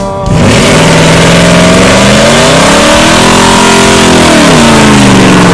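Truck engine revving hard and held high during a burnout, with the rear tyres spinning and smoking on the pavement. The engine note climbs to a peak about three seconds in, drops back and holds, over a loud steady hiss.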